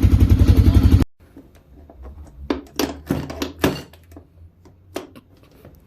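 Yamaha Raptor 660 ATV's single-cylinder engine running, cut off abruptly about a second in. Then come a few sharp metallic clinks and knocks of tools being handled in a small room, over a low hum.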